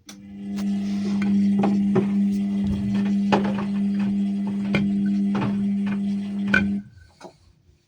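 Ariston washing machine running: a steady low motor hum with irregular clicks and knocks over it, cutting off suddenly about seven seconds in.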